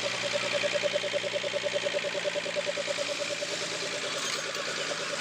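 Rebuilt Bedford J6 six-cylinder truck engine idling steadily, with an even, rapid pulse.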